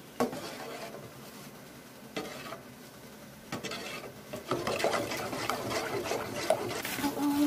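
Chocolate syrup being stirred constantly in a pot on the stove as it thickens, the utensil scraping and rubbing against the pot with a few sharp knocks. The stirring gets louder and busier from about halfway through.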